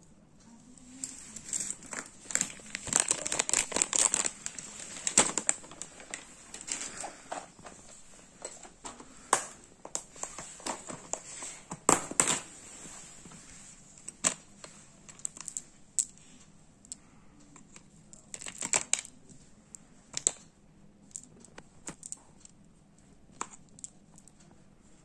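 Clear plastic packaging crinkling and rustling in irregular bursts, mixed with sharp clicks and taps of plastic items knocking against a plastic box. It is busiest in the first few seconds, then comes in scattered bursts.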